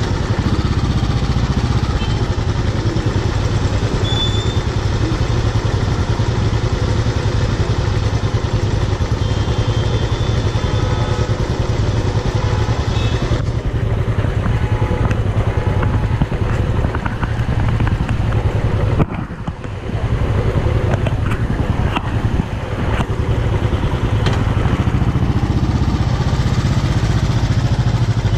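Royal Enfield Classic's single-cylinder engine idling steadily with a deep low beat; the sound briefly drops away about two-thirds of the way through.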